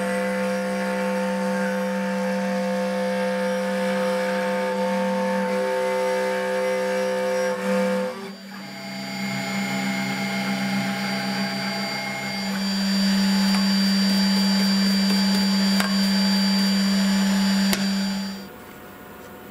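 SainSMART Genmitsu PROVerXL 6050 Plus CNC router's spindle running with a steady whine as the bit cuts an outline into MDF. The sound shifts briefly about eight seconds in and drops away sharply near the end.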